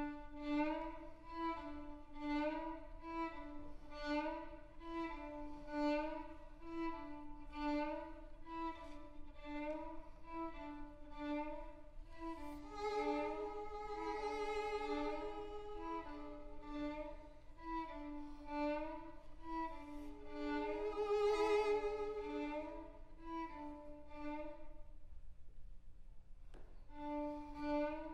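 Two violins playing a duet: a low note figure repeated over and over in a steady pulse, with higher notes above it. Twice a held, wavering note swells out over the figure, and near the end the music breaks off briefly before the figure starts again.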